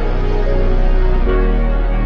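Background music with a steady heavy bass and sustained chords; the chord changes a little over a second in.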